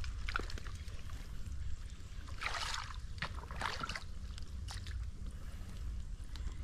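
Water splashing and sloshing as a person wades chest-deep and pushes a plastic basket through water and weeds, with a couple of louder splashes in the middle.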